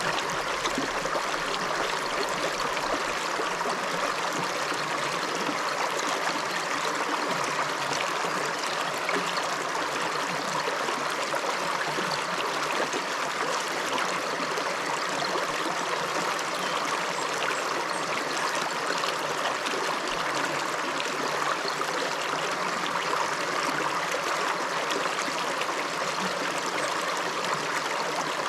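A river running steadily over rocks, a constant rush of flowing water with fine splashing and trickling.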